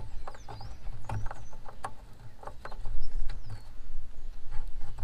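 A hand fumbling with the headlamp bulb and its plastic connector behind a 2019 Ford Ranger's headlamp housing: scattered plastic clicks, taps and rustling. A few high chirps sound in the background.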